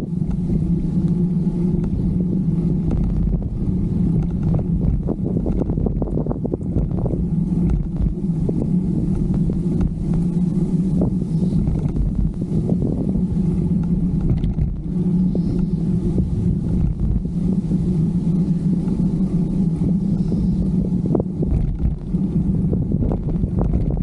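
Wind buffeting the microphone of a camera on a moving bicycle, with a steady low drone and scattered knocks and rattles from the bike rolling over the path.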